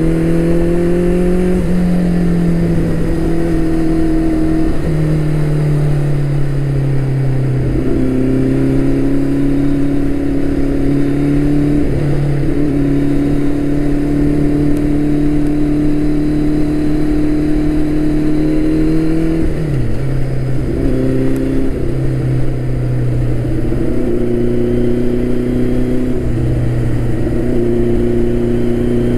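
Turbocharged Suzuki Hayabusa's inline-four engine running at road speed, heard from the rider's seat. Its note rises in the first couple of seconds, then dips and climbs back several times as the throttle is eased and reopened, with a sharp drop and recovery about two-thirds of the way through.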